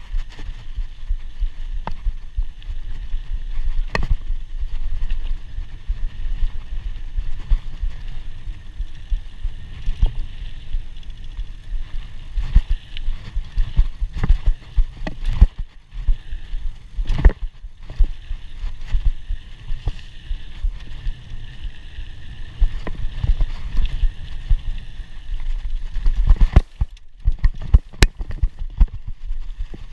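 Scott Scale 960 hardtail mountain bike ridden over a dirt trail: a steady rumble of tyres on dirt, broken by frequent irregular knocks and rattles from bumps, picked up by a camera mounted on the rider's chest.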